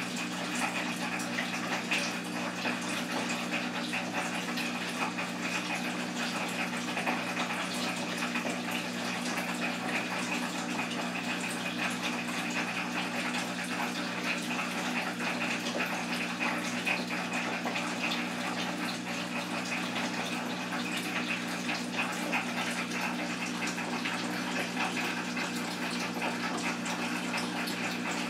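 Steady rushing, water-like noise over a low, even hum.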